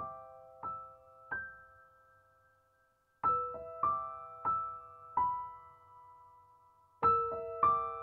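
Soft background piano music: a slow melody of single struck notes, each ringing out and fading, with a short pause about two seconds in before the phrase resumes.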